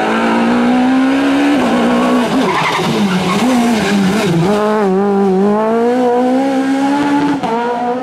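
Citroën C2 S1600 rally car's naturally aspirated 1.6-litre four-cylinder engine at high revs. Its pitch falls and rises a few times about halfway through as it takes the corner, then climbs steadily as the car accelerates away.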